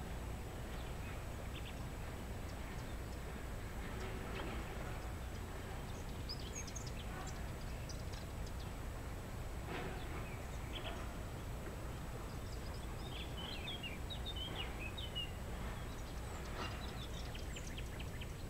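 Outdoor ambience: a steady low rumble with scattered high bird chirps, in several short clusters.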